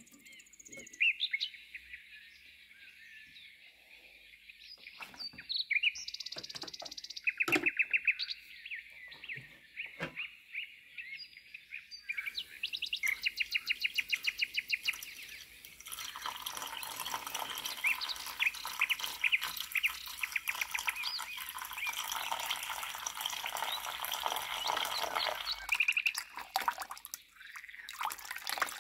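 Small birds chirping and trilling over and over. From about halfway through, a steady wash of running, bubbling water in the rust-removal bath joins them.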